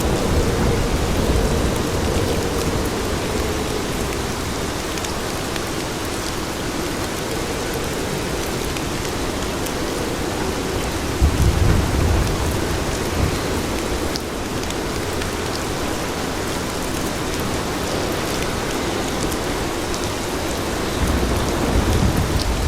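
Steady rain falling on city streets, with low rumbles about halfway through and again near the end.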